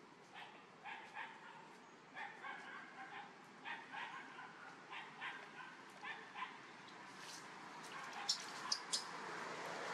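Baby macaque crying: a run of short, high, whimpering calls, about two a second, that stop after about six seconds. Near the end come a few sharp clicks and a rising rustle.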